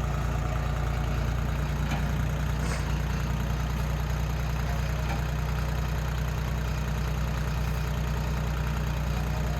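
A farm vehicle's engine running steadily at low speed, a deep even hum with no revving, as it tows a hay feeder on skids by chains.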